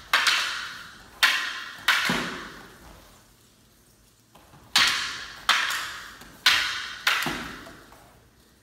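Wooden jo staff and wooden bokken clacking against each other: seven sharp strikes, three close together and then four more after a pause of about two seconds. Each strike rings out in an echoing hall.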